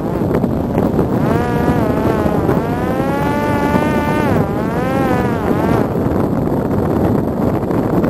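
Parrot Disco fixed-wing drone's electric motor and propeller whining under heavy wind rush on the microphone. The whine comes in about a second in and fades before six seconds, its pitch rising and falling several times as the throttle is worked to correct for a crosswind on the landing approach.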